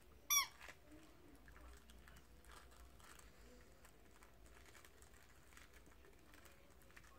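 A squeaky dog toy gives one short, loud, high squeak as a Chesapeake Bay Retriever puppy mouths it. Faint clicking and rustling follow as the puppy noses through the toys in its plush bed.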